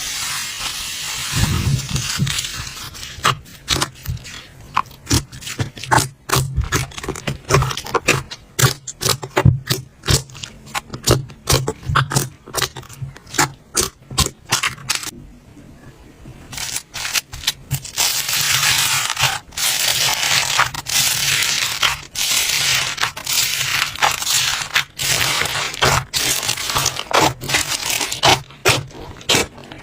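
Slime being squeezed and pressed by hand, giving dense crackling and popping clicks, with stretches of scraping hiss.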